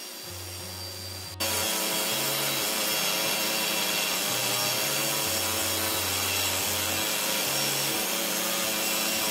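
Pneumatic caulking hammer driving a chisel along the riveted edge of a steel boiler tube plate, caulking the seam to seal it. It starts abruptly about a second and a half in and then runs steadily without a break.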